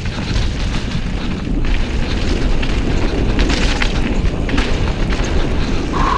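Mountain bike descending fast on a loose, stony dirt trail: heavy wind rumble on the action camera's microphone, with the tyres crunching over gravel and a few sharp clatters as the bike hits rocks.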